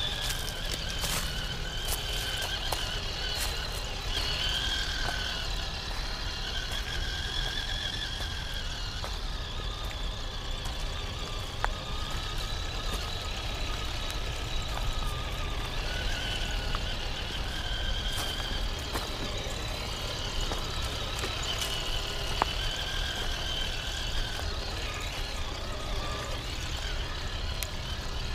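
Traxxas TRX-4 Sport RC crawler's electric motor and gears whining, the pitch rising and falling with the throttle, with a couple of sharp clicks.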